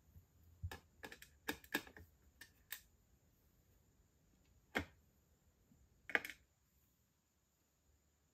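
Metal tweezers clicking against small plastic perler beads, picking them from a plastic bead tray and setting them on a clear plastic pegboard. A quick run of small sharp clicks fills the first three seconds, then a single click and a short cluster about five and six seconds in.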